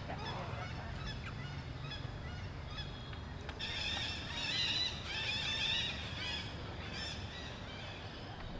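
Animals calling: a burst of short, high, arching calls repeated rapidly for about two seconds, starting a little over three seconds in, over a steady low background rumble.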